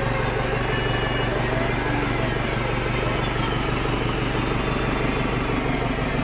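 Willys jeep's electric winch pulling the jeep up a muddy bank, a steady motor drone over the jeep's engine running at idle.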